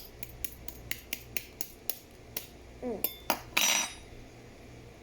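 Quick, light, even taps on a dish, about four a second, stopping about halfway through, followed by a short scrape.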